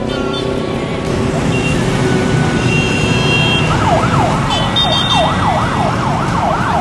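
A yelp-type siren wailing rapidly up and down, about three sweeps a second, starting a little past halfway, over a steady noise of street traffic.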